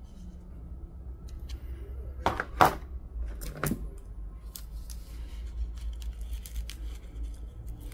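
Hand-held bonsai shears snipping and clicking at a juniper's branches and bark near the trunk. A few sharp clicks two to four seconds in are the loudest, followed by a run of lighter snips.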